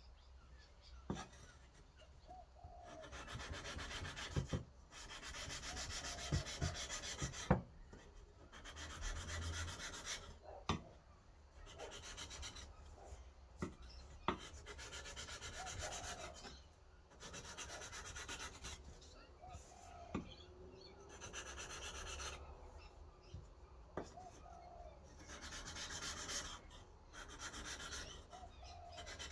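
Carbon-steel knife blade rubbed back and forth on 400-grit wet/dry sandpaper, lubricated with WD-40, on a flat tile: gritty scraping strokes in bouts of a couple of seconds with short pauses between. A few sharp clicks are scattered through.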